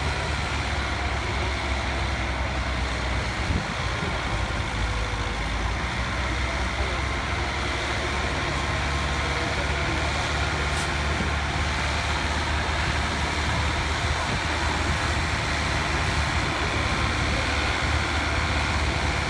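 Farm tractor engine running steadily under load, pulling a weight sled down the track.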